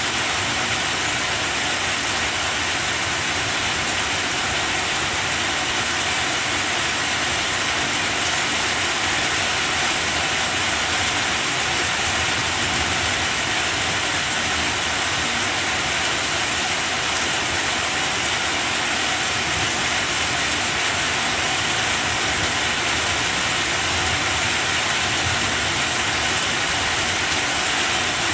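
Rain falling steadily on banana plants: an even hiss that does not let up.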